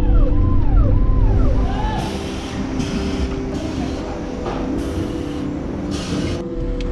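Low rumble of a vehicle on the road. After about two seconds it gives way to shoe-factory floor noise, with about five short bursts of air hiss from the press machines. Near the end the vehicle rumble returns. A faint music bed with repeating gliding notes runs underneath at the start.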